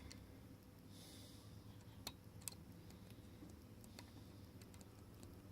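Near silence with a few faint, sparse clicks of a lock pick working the pins of a pin-tumbler padlock under a tension wrench, and a soft breath about a second in.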